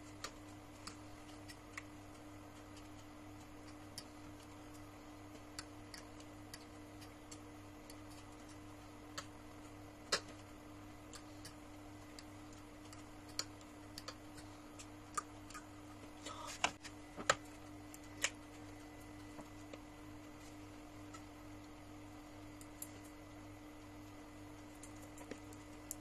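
Scattered light clicks and taps, a few louder ones bunched a little past the middle, over a steady low hum.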